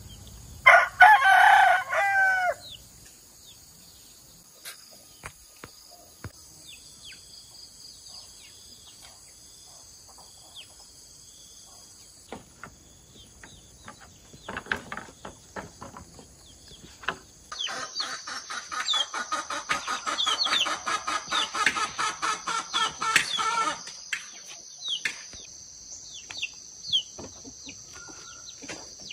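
A rooster crows once, loudly, about a second in. A steady high insect drone and scattered bird chirps continue after it, with a long stretch of rapid, rhythmic chattering in the second half.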